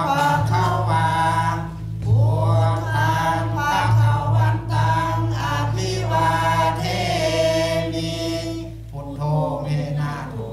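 A group of voices chanting a Pali Buddhist chant in unison, drawing out long held notes that slide from pitch to pitch.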